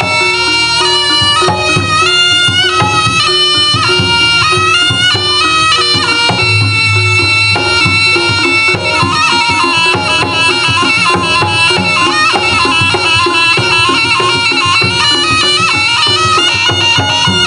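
Jaranan gamelan music played loud: a reedy double-reed terompet (slompret) carries a melody that moves in steps, over kendang drum strokes and a steady held note.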